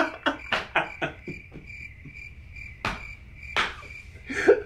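Cricket chirping sound effect, a thin high chirp pulsing about three times a second, the stock 'awkward silence' gag after a joke. A quick run of sharp clicks comes in the first second, and a few louder knocks follow later.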